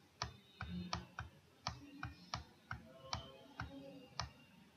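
Faint computer mouse button clicks coming irregularly, about three a second, as strokes are drawn with the mouse on an on-screen whiteboard.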